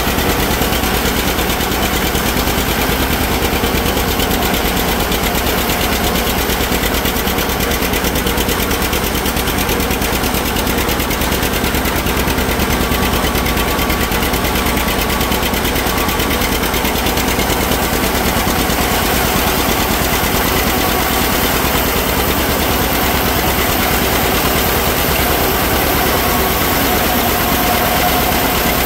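John Deere 60 tractor's two-cylinder engine running steadily with a rapid popping beat, together with the whirring of the PTO-driven Fox one-row forage harvester chopping corn.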